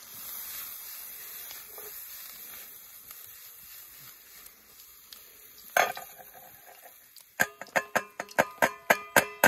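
Food sizzling in a frying pan over a campfire, then a single metal clank about six seconds in. Near the end comes a quick run of about ten ringing clanks, roughly five a second, as the pan is knocked against a stainless steel bowl to empty the food into it.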